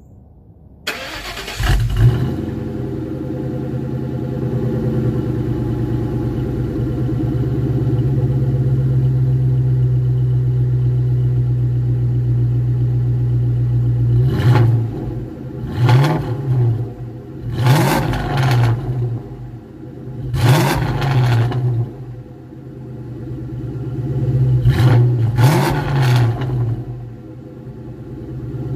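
2000 Ford Mustang GT's 4.6-litre two-valve V8 starting through a BBK off-road X-pipe and stock mufflers, catching after a brief crank and settling into a steady idle. In the second half it is revved in a series of short blips that rise and fall back to idle, with the raspy note at higher rpm.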